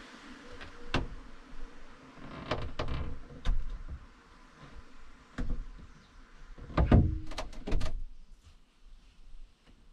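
Sliding window frame being test-fitted into the freshly cut opening in a VW T4 van's sheet-metal side panel: a series of separate knocks and clicks as it bumps against the body, with the loudest cluster about seven seconds in.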